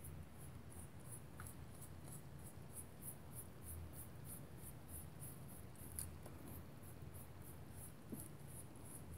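A damp towel rubbed over a textured polymer clay leaf on paper, wiping pastel colour off its raised surface: a faint scratchy rubbing in quick, even strokes, about three a second.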